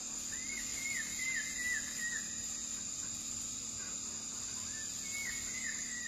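Forest ambience: a steady high-pitched insect drone, with two short runs of four or five quick chirping call notes, one soon after the start and one near the end.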